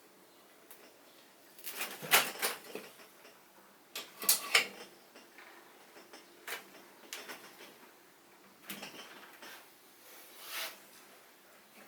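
Scattered clicks, taps and clinks of metal engine parts and tools being handled during reassembly, with a few louder knocks about two seconds and four seconds in.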